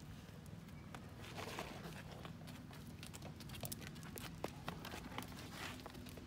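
Deer milling around close by, with scattered light clicks of hooves on paving stones and a couple of breathy sniffs close up.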